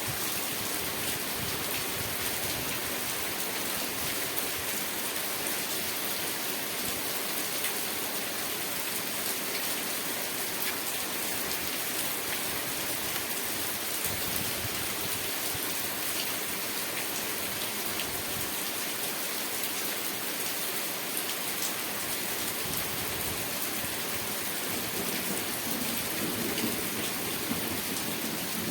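Steady rain pattering, an even hiss of many small drops with no break. Near the end a low rumble builds beneath it.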